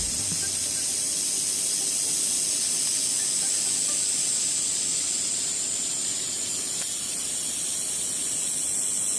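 A steady high-pitched hiss, even throughout.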